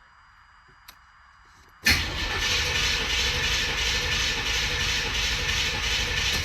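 Starter cranking the cammed small-block Chevy 305 V8 for about four and a half seconds on a cold start, beginning suddenly about two seconds in and stopping abruptly without the engine catching; two pumps of the gas pedal were not enough to start it in the cold.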